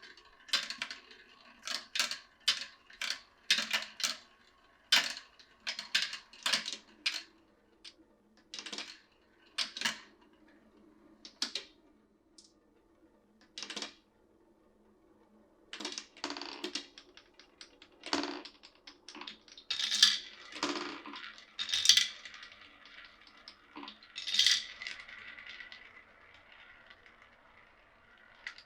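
Glass marbles clicking and clattering down a wooden marble run: a quick string of sharp clacks for the first dozen seconds, then a few slower, longer rattling runs with a light ringing after them.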